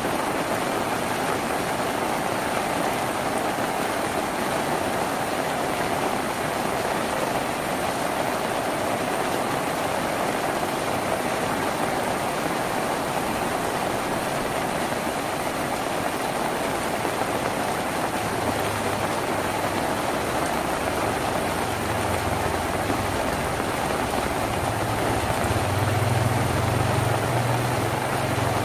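Steady, heavy rain drumming on a tin roof. A low rumble joins in about two-thirds of the way through and swells near the end.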